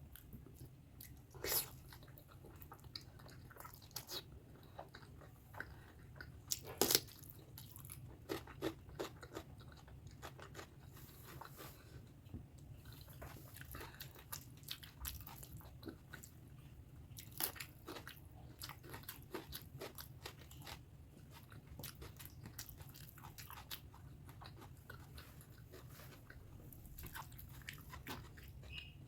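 Close-miked chewing and wet mouth sounds of someone eating pork fat curry with rice: irregular clicks and smacks, the loudest about seven seconds in, over a low steady hum.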